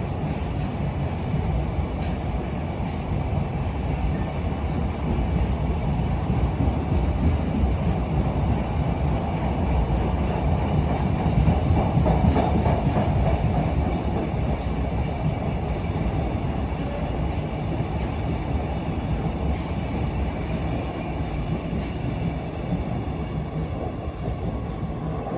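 Freight train hauled by an EH500 electric locomotive rolling past: a steady rumble with wheels clicking over rail joints, swelling a little about halfway through.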